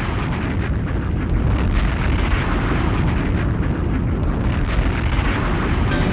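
A steady, loud roar of rumbling noise with no tune or voice in it.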